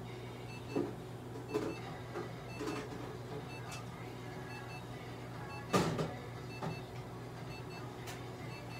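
Red-light laser therapy unit giving short electronic beeps that repeat every second or so while the handheld probe is held on the cat, over a steady low hum. A few brief rustles and knocks from handling, the loudest about six seconds in.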